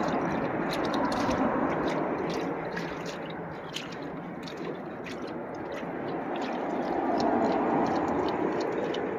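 Dog lapping water from a swimming pool: a steady run of quick wet clicks and slurps, over a continuous low background rumble.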